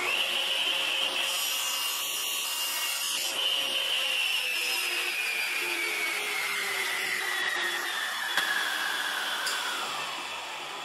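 Table saw switched on, its blade spinning up to a steady high whine that sags slowly in pitch while a small wooden part is cut on a crosscut sled. About eight seconds in, a click is followed by the whine dropping away as the blade winds down.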